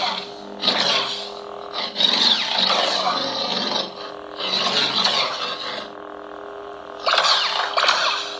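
Lightsaber sound font on a Proffie 2.2 saber board, playing through the hilt's built-in speaker: a steady electric hum with four loud swelling swooshes that rise and fade, about one every two seconds.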